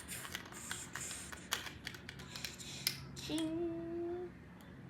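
Plastic LEGO bricks clicking and clattering as they are handled and pressed together, then about three seconds in a child hums one steady held note for about a second.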